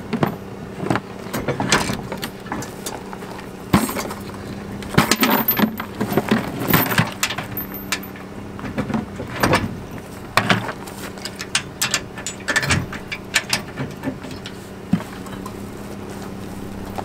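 Metal trailer safety chains clinking and rattling, with knocks and scrapes as the boat trailer's tongue is handled, the busiest stretch in the middle. Under it a steady engine hum runs throughout.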